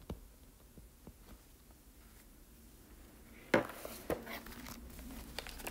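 Stylus tip tapping and clicking against a tablet's glass screen during handwriting: faint, scattered light ticks, with a sharper click about three and a half seconds in and another just after.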